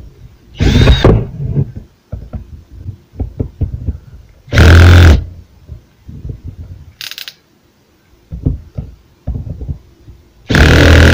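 Cordless drill-driver running in four short bursts of about half a second, backing out the screws of an angle grinder's gear housing. Between the bursts come scattered clicks and knocks from handling the tool and screws.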